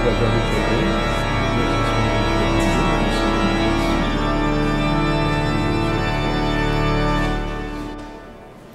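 Organ music playing long sustained chords, fading away near the end.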